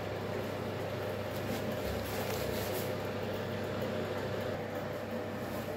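A steady mechanical hum, even throughout, with a constant low drone beneath it.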